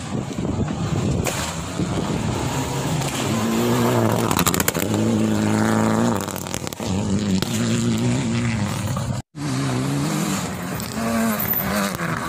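Rally car engines at full throttle on a gravel stage, the pitch climbing and dropping again and again as they accelerate and shift gears. The sound cuts out for a moment about nine seconds in, then another car is heard revving.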